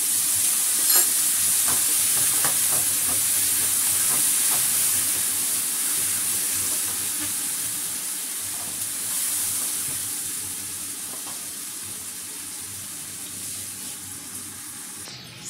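Curry-coated chicken wings sizzling in a hot nonstick frying pan just after a little water has been added: a loud hiss that slowly dies down as the liquid heats, with a few light clicks in the first few seconds.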